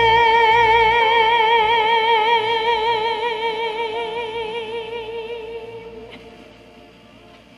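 A woman's voice holds the song's final note with a slow vibrato that widens as it goes, over a karaoke backing track. The note fades away about six seconds in.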